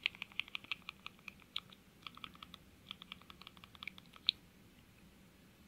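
Quick run of soft, short clicks, several a second, as the cursor is stepped across the Fire TV on-screen keyboard and letters are selected. The clicks stop a little past four seconds in, the last one the loudest.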